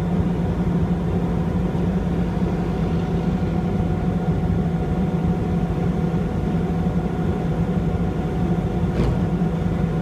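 Fire engine's diesel engine running steadily with an even, low hum, with a faint short tick near the end.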